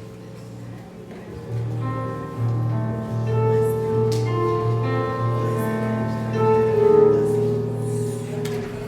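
Slow music with long held melody notes over a steady sustained bass note, swelling louder about a second and a half in.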